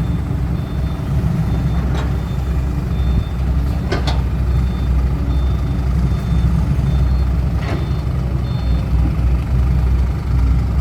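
Heavy diesel dump truck engines running, with a reversing alarm beeping steadily as a truck backs up. A few sharp knocks sound about 2, 4 and 8 seconds in.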